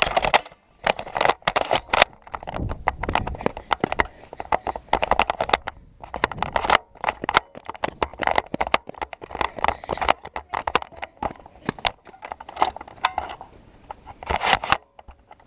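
Irregular clusters of clicks, knocks and scraping, like hurried footsteps and gear rubbing and knocking against a worn action camera.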